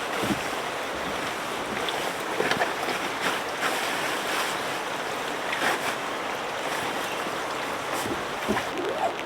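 Steady rushing of wind and water in a storm, with a few scattered light knocks.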